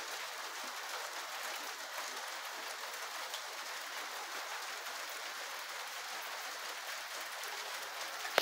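Rain starting to fall again: a steady, even hiss of drops.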